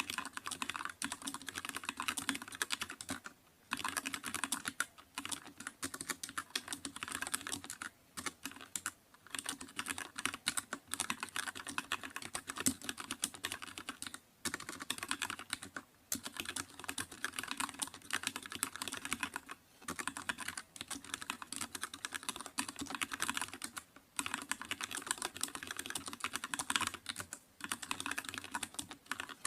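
Computer keyboard being typed on continuously: a fast, dense stream of key clicks, broken by brief pauses every few seconds.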